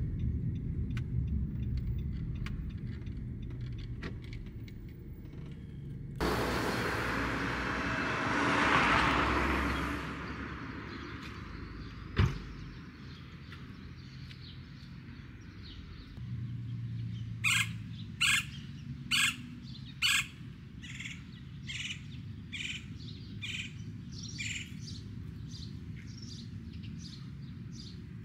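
A vehicle goes by, its noise rising and then fading over about four seconds. Later a bird chirps in short, repeated calls, four loud chirps in quick succession and then softer ones. A single sharp click comes between the two.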